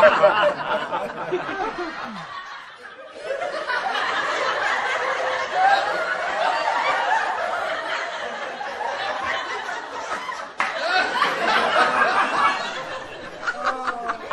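Several people laughing and chuckling at once, overlapping, with a short lull about three seconds in and a sudden break near the end.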